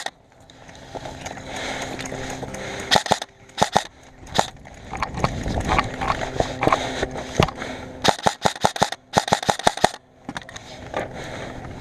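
Airsoft guns firing: sharp snapping shots, scattered singles, then a rapid burst of shots about eight to nine and a half seconds in.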